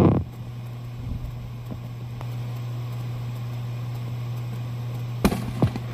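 Distant fireworks: the tail of a loud burst dies away at the very start, then two sharp bangs about a third of a second apart near the end, over a steady low hum.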